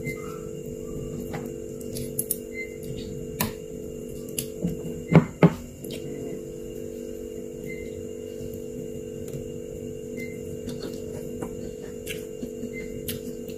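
Metal spoon and chopsticks clinking and scraping against a ceramic soup bowl while cutting up a large bakso meatball, with scattered light clicks and two sharp clinks about five seconds in. A steady low hum runs underneath.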